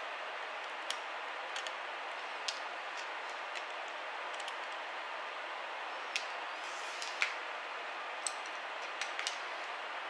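Scattered small clicks and taps of tweezers, a screwdriver and fingers on a laptop's internal parts and hard drive, over a steady hiss.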